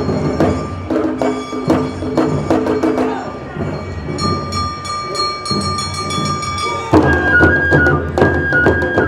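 Live Awa Odori festival music: drums and sharp wooden percussion strikes in a fast, even rhythm under a bamboo flute holding long high notes. About seven seconds in, the full ensemble comes in louder, with the flute playing a melody over heavy drumming.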